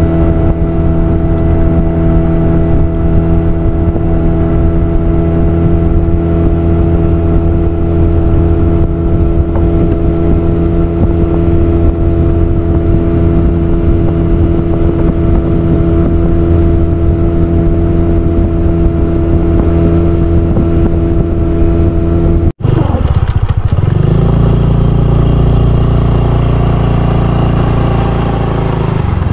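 A small engine running steadily at an even speed. About twenty-two seconds in it breaks off for an instant, and then an engine runs on at a lower, deeper pitch.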